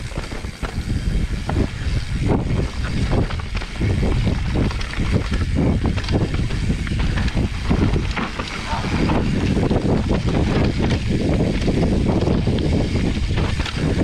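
Mountain bike descending a rough dirt downhill trail: wind rushing over the camera microphone with a steady low rumble, and tyres and bike rattling and knocking over bumps.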